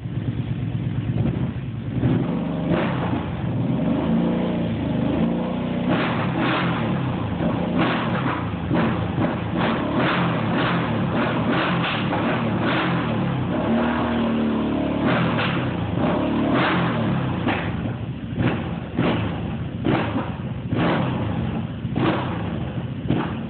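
Kawasaki Brute Force ATV engine running through an HMF XL slip-on exhaust and being revved. A couple of slower rising revs come early, then from about six seconds in it is a string of short, sharp throttle blips, roughly one or two a second.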